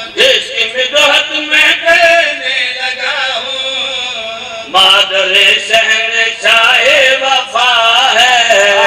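A man chanting in a sung, wavering voice of long held notes, amplified through a public-address loudspeaker, with sharp clicks now and then.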